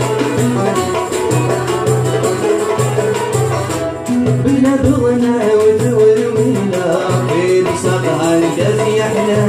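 Algerian chaabi ensemble playing live: banjo-guitar, tenor banjo, violin and keyboard carry a flowing melody over a steady beat from the tar frame drum and hand percussion.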